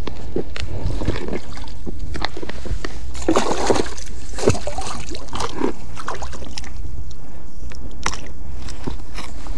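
Pond water sloshing and splashing in bursts, strongest about three to four seconds in, as a sunken motorbike is dragged by a magnet-fishing rope through the shallows. Scattered knocks and a steady low rumble run underneath.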